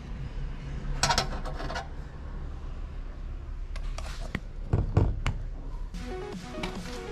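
Clatter and knocks of parts being handled: a short rattle about a second in, then a few sharp knocks and heavier thumps around the five-second mark. Background music starts near the end.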